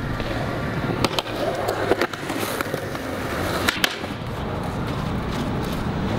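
Skateboard wheels rolling on concrete with a steady rumble. A few sharp clacks come about one and two seconds in and again near four seconds.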